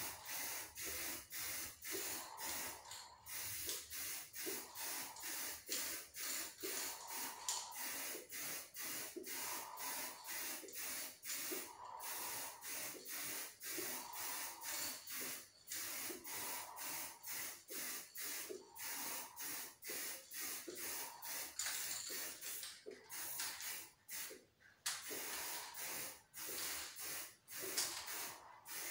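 Aerosol spray-paint can hissing in many short bursts, about two a second, laying down a light first mist coat of lacquer.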